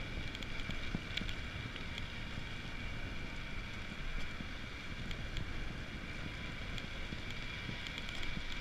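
Mountain bike rolling downhill on asphalt: wind buffeting a handlebar-mounted action camera's microphone over a steady rumble of tyres on the road, with a few light clicks and rattles from the bike.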